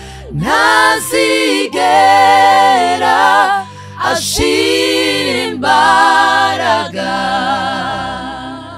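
Two women's voices singing a slow worship song together in harmony. The notes waver with vibrato, and several phrases are broken by short breaths.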